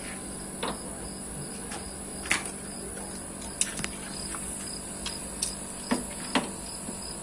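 About half a dozen sharp metal clicks and clinks as locking pliers are handled and clamped onto the brass service valve of a split air conditioner's outdoor unit. Under them run a steady hum from the running outdoor unit and a high, insect-like whine.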